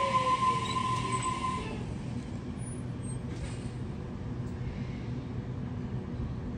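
Sydney Trains Waratah A-set electric train pulling out and moving away: a high steady whine and a second whine falling in pitch die out in the first two seconds. After that comes a low, steady hum and rumble of the train rolling off, slowly fading.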